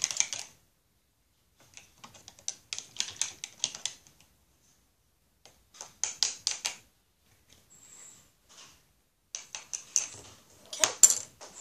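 A spoon clinking rapidly against a container while stirring dish soap and water, in several bursts of quick ticks with short pauses between them.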